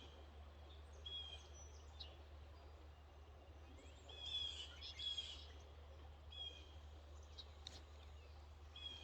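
Faint birdsong: short chirping phrases repeating every second or so, the loudest about halfway through, over a steady low hum.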